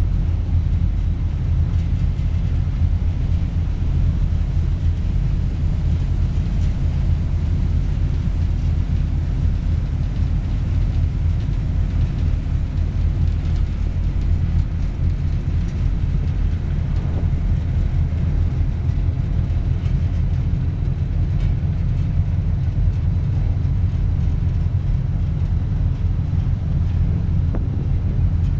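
A sightseeing boat's engine running steadily while the boat is under way, heard as a constant deep rumble.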